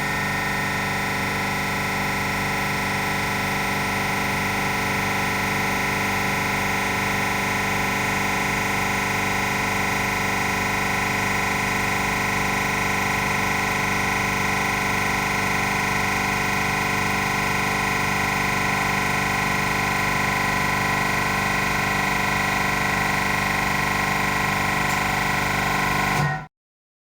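Frascold Z40-126Y semi-hermetic reciprocating refrigeration compressor running steadily under test load, drawing about 31 amps: an even hum with several steady tones. The sound cuts off suddenly near the end.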